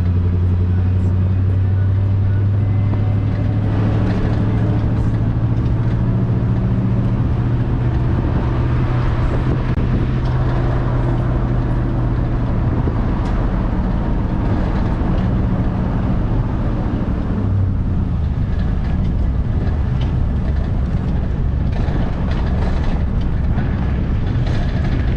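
2001 GMC Sierra 2500HD pickup truck driving slowly along a rough dirt jeep trail: a steady low engine note with road noise from the tyres and a few scattered knocks and rattles. The engine note drops slightly about two-thirds of the way through.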